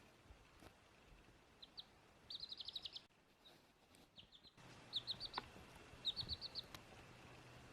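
Baby chick peeping: quick runs of short, high cheeps in several bouts, each run lasting about half a second.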